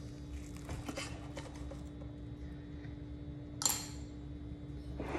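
Faint clicks of cutlery against a plate as the food is tasted, with one short brushing noise about three and a half seconds in, over a steady low hum.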